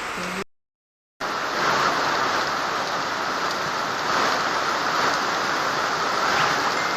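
Steady rushing noise of water during a flood, broken by a brief total silence near the start.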